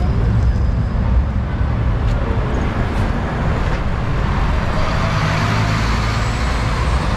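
Road traffic noise: a steady low rumble of motor vehicles, with a louder swell of noise about five seconds in, like a vehicle passing.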